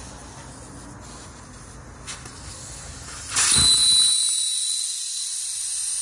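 Air hissing out of a tire's valve stem as the valve core is held open with a small pointed tool, deflating the tire before it is removed. The hiss comes in loud a little over three seconds in, with a thin high whistle in it, and cuts off abruptly at the end.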